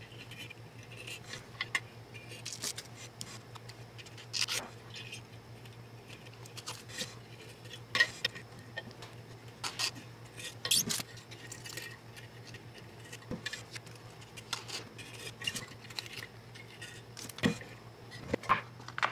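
Blue painter's tape being handled, pressed onto a knife blade and trimmed with a hobby knife: scattered light clicks, crinkles and short scrapes at irregular intervals, over a faint steady hum.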